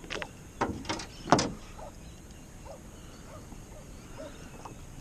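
A few hard knocks and clunks of gear against a kayak, four of them in the first second and a half, then only faint light taps.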